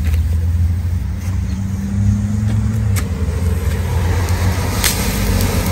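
Small ground firework fountain, lit and starting to hiss and smoke about four seconds in, with a few sharp crackles. A steady low rumble runs underneath.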